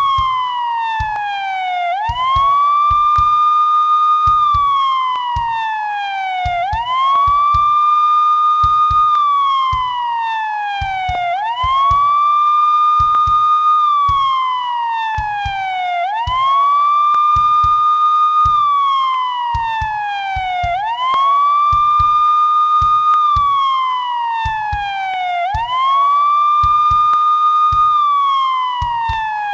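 Police siren sounding a wail. Each cycle rises quickly, holds a high note for about two seconds, then slides slowly back down, repeating about every four and a half seconds.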